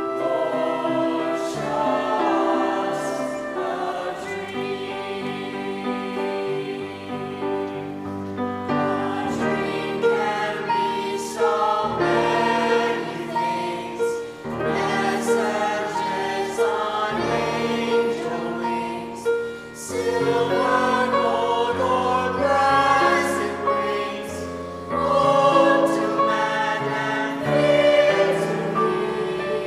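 A choir singing a song over instrumental accompaniment with a moving bass line.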